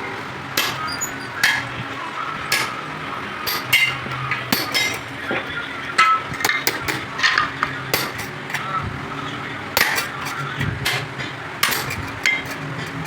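Irregular hammer blows on metal, roughly one or two a second, during work on a truck clutch plate. A low steady hum runs underneath.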